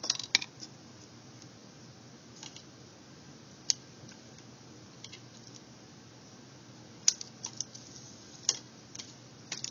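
Scattered small, sharp clicks and taps of plastic reading-glasses frames and lenses being handled as the lenses are popped out of the frame, over a faint steady hum. The clicks come about ten times, irregularly, the sharpest a little before the middle and several close together near the end.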